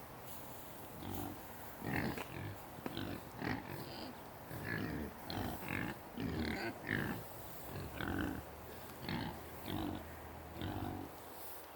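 Hogs grunting over and over, short calls coming about once or twice a second.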